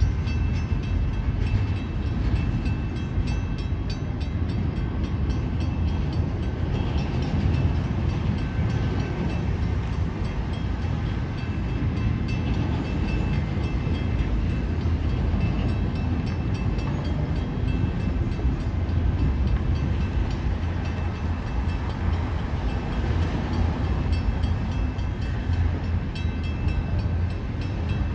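Railway cars of a passing train rolling by: a steady, continuous low rumble, with faint high whining tones that come and go.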